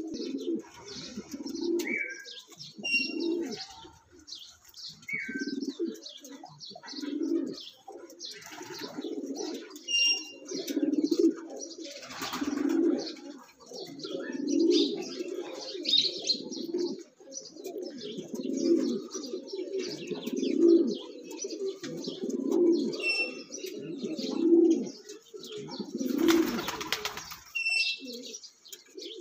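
Domestic pigeons cooing over and over, a low coo about every two seconds. Short high chirps of other small birds come now and then, and a brief burst of wing flapping sounds near the end.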